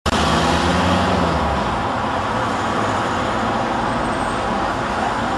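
Steady outdoor traffic noise, with a low engine hum that fades out about two seconds in.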